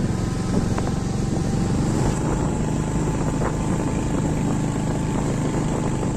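Motorcycle engine running steadily while riding, with wind and road noise on the microphone.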